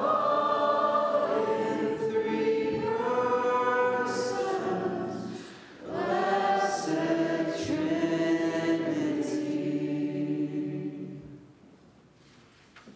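A group of voices singing a slow song in long phrases with held notes, a brief break between two phrases about six seconds in; the singing ends a second or so before the end.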